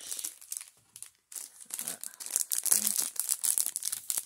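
A makeup brush's wrapper being crinkled and torn open: dense crackling in two spells, a short pause about a second in, the second spell louder.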